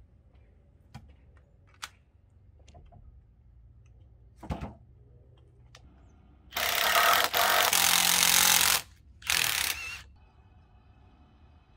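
Power drill boring into a log, run in two bursts: one of about two seconds, then a shorter one a moment later. A few light knocks come before it.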